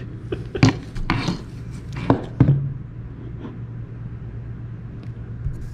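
Handling of a Glock 43 pistol: several sharp clicks and knocks in the first two and a half seconds, then quieter small handling noises, over a steady low hum.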